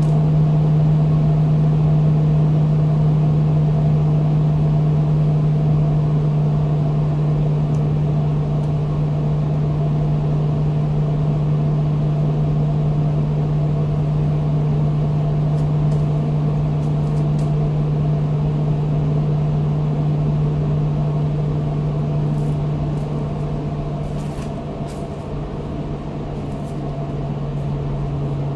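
Blower door fan (Blower Door 4, 230 V, Ring C) running with a loud, steady hum as it depressurizes the building to about 70 Pa. Near the end its pitch drops slightly as the automatic test slows the fan toward the next 65 Pa step.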